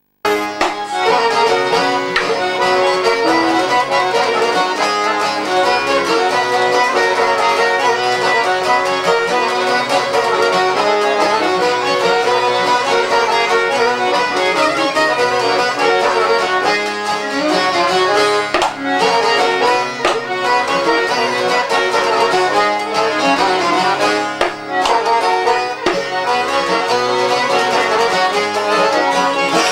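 Instrumental folk music playing, with no singing: a lively tune of bowed and squeezed melody lines over an accompaniment.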